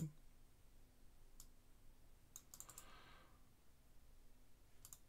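A few faint, scattered computer mouse clicks over near silence.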